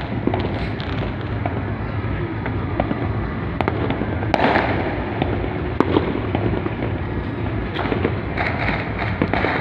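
Many fireworks going off across a city at once: a steady, dense rattle of pops, with a few sharper bangs standing out in the middle.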